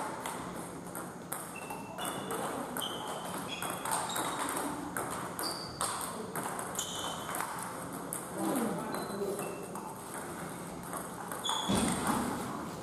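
Table tennis ball struck back and forth off the paddles and the table during a rally: a steady series of short clicks and high pings.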